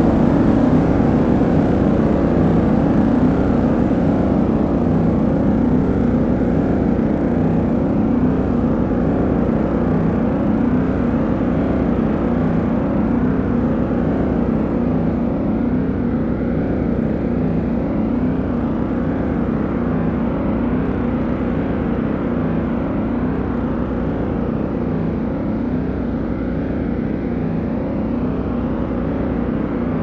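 Several car engines running together in a continuous rumble, their overlapping engine notes rising and falling, gradually getting a little quieter.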